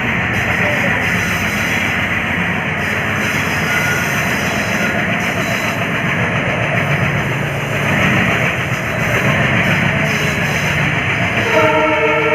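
WDM-3D diesel locomotive running with a train, a steady engine and rail noise. Near the end its horn starts sounding, several tones at once, and holds.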